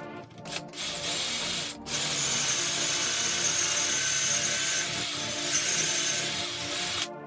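Bosch cordless drill boring into a wooden board through a doweling jig. There is a short burst about half a second in, then a steady high whine with a brief break near the two-second mark, cutting off near the end.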